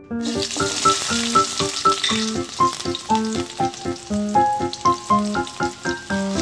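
Hot oil in a stainless steel wok starts sizzling suddenly as sliced shallots and garlic are dropped in, then keeps frying steadily. Light keyboard music plays underneath.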